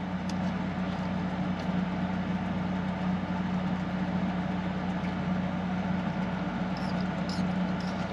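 Small window air conditioner running in a pickup-bed camper shell: a steady hum with fan rush.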